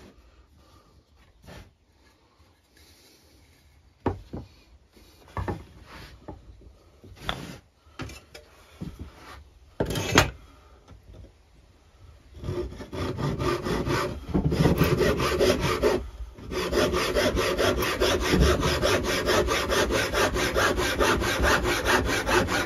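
Scattered knocks of wood being handled, then from about halfway in a handsaw cutting through a scrap piece of wood in quick, steady strokes, with a short break a few seconds into the cut.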